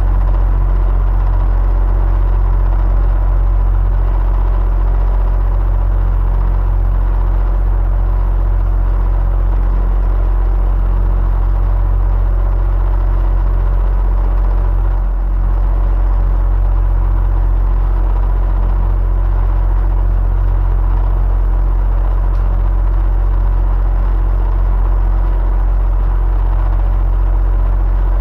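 Electric fan running steadily: a deep, even hum with a faint steady whine above it, dipping for a moment about halfway through.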